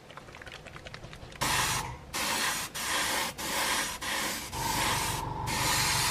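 Grey paint sprayed onto plastic scale-model parts: after faint rapid clicking, a run of short hissing spray bursts of about half a second each starts about a second and a half in, the last one longer.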